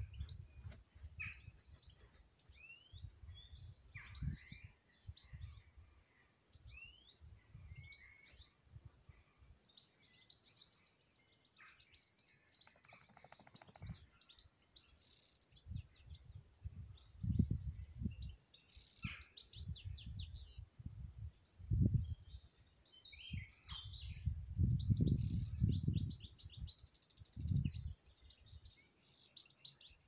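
Several songbirds singing together, with many short chirps, trills and quick rising calls overlapping throughout. Gusts of wind buffet the microphone as low rumbles, strongest in the second half.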